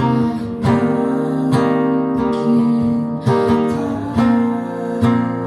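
Acoustic guitar strumming sustained chords in a slow song, with a fresh strum about once a second and no voice.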